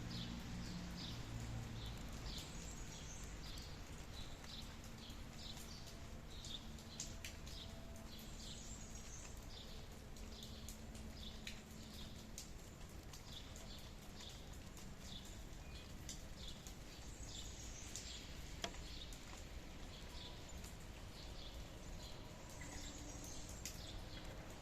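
Light rain hissing, with scattered drips clicking, while a small bird chirps over and over in short high notes about twice a second.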